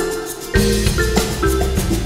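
Background music: a melody of short struck notes, with bass and drums coming in about half a second in.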